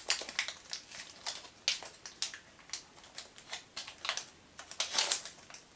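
Small snack wrapper crinkling and crackling as it is picked open by hand: a run of short, irregular clicks, with a denser burst of rustling about five seconds in.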